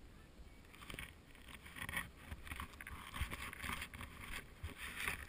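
Deep powder snow hissing and spraying in repeated surges as a rider turns downhill, picked up by a helmet-mounted camera with low rumble beneath.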